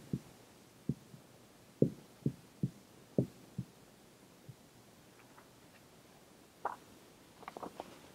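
A dry-erase marker knocking and tapping against a whiteboard as axes and a curve are drawn: a string of short, low knocks through the first four seconds. A few short, fainter clicks and rustles follow near the end.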